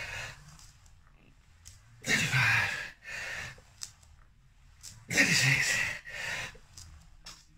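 A man breathing hard through ab roller reps: about every three seconds a loud, forceful voiced exhale that drops in pitch, each followed by a shorter, weaker gasping breath.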